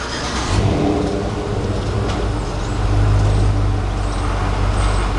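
A nearby motor vehicle's engine running with a deep, steady hum that swells about halfway through.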